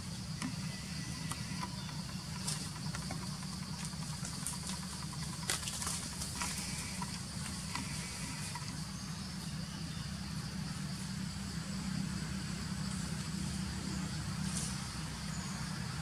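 Forest ambience: a steady low engine-like hum under a constant high insect drone, with scattered small clicks and crackles.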